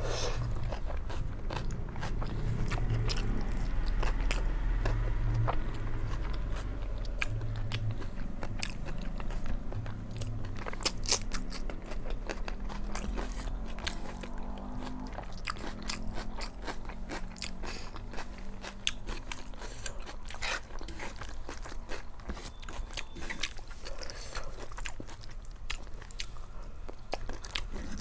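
Close-miked chewing and mouth sounds of someone eating a meal of rice and curry: a steady run of many small, sharp wet clicks, with a low rumble in the first half.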